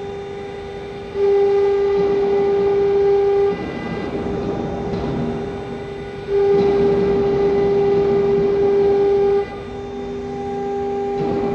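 A CNC router spindle engraving MDF: a steady whine over a rough cutting noise. The sound becomes much louder twice, for about two to three seconds each, as the bit cuts into the board.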